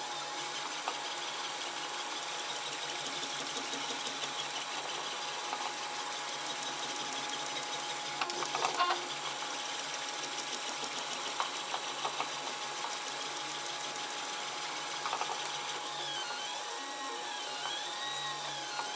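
3D printer running mid-print: its stepper motors whirring steadily as the print head moves, with a short clatter of clicks about halfway through. Near the end the motor pitch rises and falls in repeated arcs as the head traces curves.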